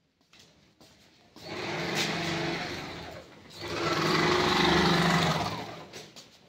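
Industrial sewing machine stitching yellow plastic tarpaulin, running in two spells of about two seconds each; its hum sinks in pitch as the machine slows between them, and the second run is louder.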